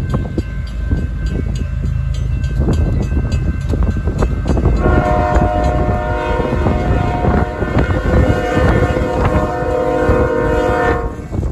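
Diesel freight locomotive's air horn sounding one long chord, starting about five seconds in and cutting off near the end. A steady low rumble runs underneath.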